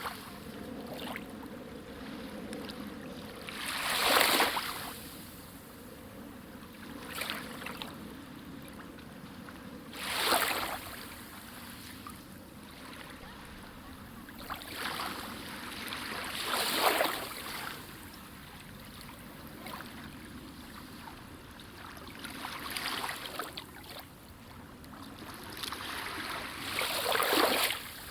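Small waves washing against a lakeshore, with a louder splash every five to seven seconds over a steady background of moving water.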